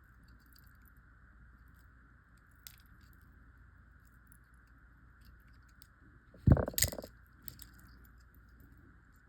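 Small clicks and ticks of jewelry wire and round nose pliers being handled while a wire loop is wrapped, with a sharp knock about six and a half seconds in followed by a few smaller clicks.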